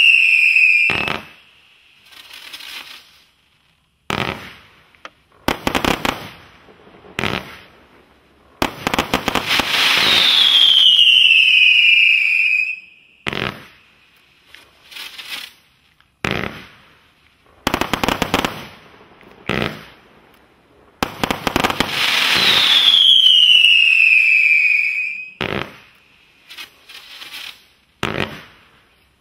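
A 144-shot firework barrage cake firing in bursts of bangs and crackles with short lulls between them. Three long whistles fall in pitch: one at the start, one about ten seconds in and one about twenty-two seconds in.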